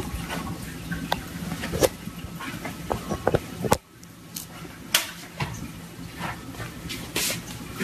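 Cardboard box knocking and scraping against a tabletop as a cat pushes its head into it: a run of irregular light knocks and rustles.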